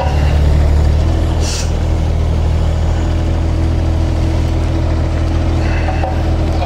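Kubota mini excavator's diesel engine running steadily, with a steady higher whine joining about a second in as the boom raises the auger drive over the auger bit.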